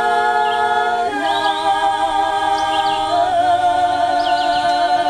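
A cappella vocal group singing in close harmony, holding long sustained chords that move to a new chord about a second in and again about three seconds in.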